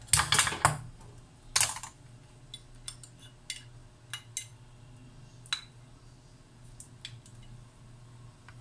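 Two short, loud rustling noises in the first two seconds, then scattered light clicks and taps of kitchen handling while butter is taken from a ceramic butter dish.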